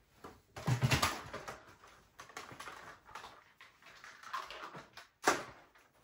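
A person walking across a rug and handling an upright vacuum: a heavy thump about a second in, scattered knocks, and a sharp click a little after five seconds in.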